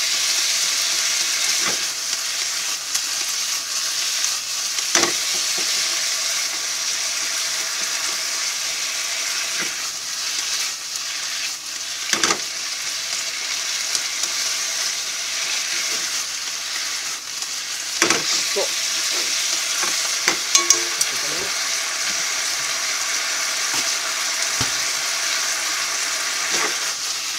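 Strips of pork sizzling steadily in sauce in a nonstick wok while being stirred with chopsticks, with sharp taps now and then as the chopsticks knock the pan.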